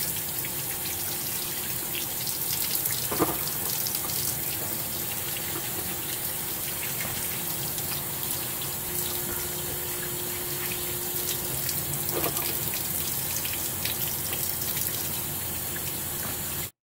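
Kitchen tap running steadily into a sink while a scour pad scrubs a crab's shell and legs under the stream, with small scratchy clicks and a couple of knocks. The sound cuts off suddenly near the end.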